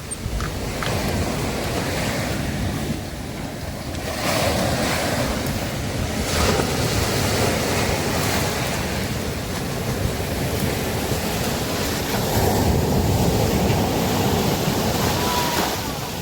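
Sea waves breaking and washing up a beach, a continuous surf that swells about four seconds in and again near the end, with wind buffeting the microphone.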